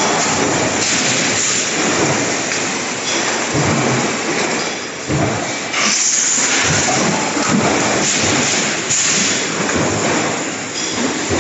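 A row of mechanical punch presses running in a stamping shop: a steady loud rumble and clatter with irregular heavy thumps from the press strokes, and a couple of short bursts of hissing air.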